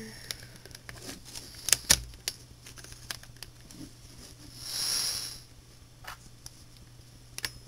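Plastic Rubik's cube pieces clicking and tapping as corner pieces are set into the top layer by hand, with a soft hiss about five seconds in.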